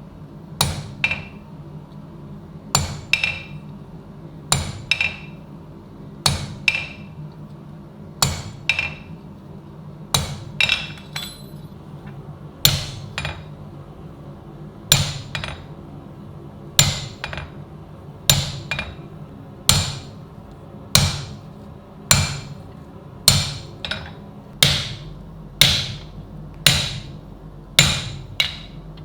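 A hand hammer striking steel over and over, the blows mostly coming in quick pairs every one to two seconds, each with a short metallic ring.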